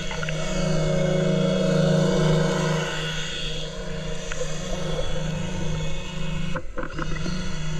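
A home-built sea scooter's four underwater thrusters running, heard underwater as a steady low hum with a fainter whine above it. The sound drops out briefly near the end, with a few clicks.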